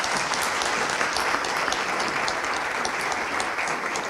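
Audience applauding, with many people clapping steadily.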